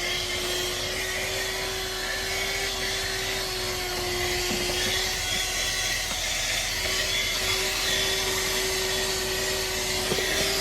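ArmorAll 12V handheld car vacuum running steadily: a steady motor whine over the rush of air, as it sucks sand and dirt off the car's floor.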